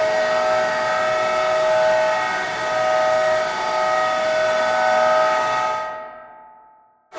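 Hockey arena goal horn sounding one long, steady blast that fades out over its last second or so.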